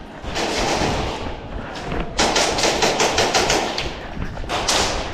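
Airsoft gun firing a rapid string of about a dozen shots in a second and a half, starting about two seconds in.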